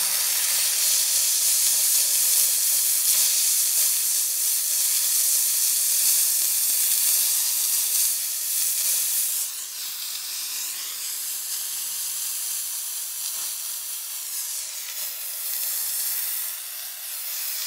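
Steam jetting from the nozzle of a McCulloch handheld steam cleaner: a strong, steady hiss that drops a little in level about halfway through and carries on more softly.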